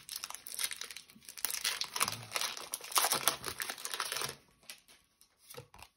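Pokémon TCG booster pack's foil wrapper being torn open, crinkling and crackling for about four seconds, then a few faint rustles as it settles.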